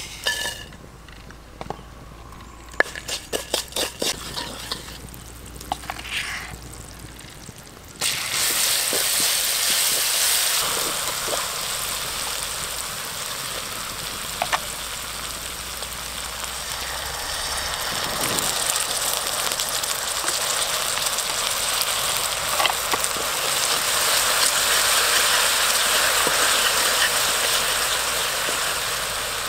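Chillies and garlic frying in hot oil in a wok. The sizzle starts suddenly about a quarter of the way in and runs loud and dense to the end. Before it, a quick run of sharp clicks and knocks.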